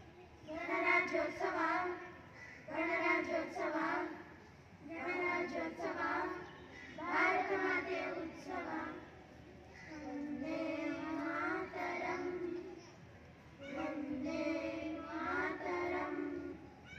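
A small group of children singing a song together into a microphone, in phrases of about two seconds with short breaks between them.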